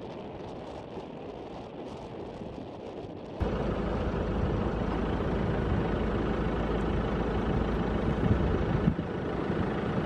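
Vehicle driving on a gravel road, heard from inside the cabin as steady tyre and wind noise. It gets abruptly louder and deeper about three and a half seconds in.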